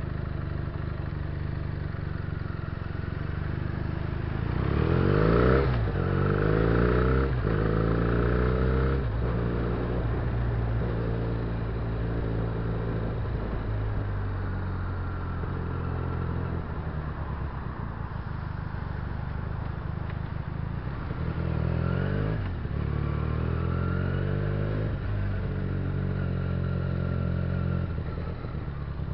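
Benelli 300cc parallel-twin motorcycle engine pulling away and accelerating through the gears. There are quick upshifts, each a rising note that drops back, from about four to nine seconds in and again from about twenty-one to twenty-six seconds in, with steady running between.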